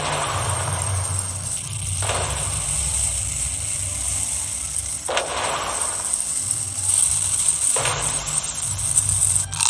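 Four whooshing swishes, each starting sharply and fading away, about two to three seconds apart, over a steady low background bed.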